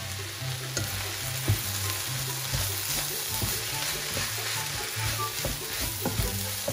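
Fried rice sizzling in a hot non-stick pan while a wooden spatula stirs and scrapes through it, with scattered light knocks of the spatula against the pan. Background music with a low bass line plays underneath.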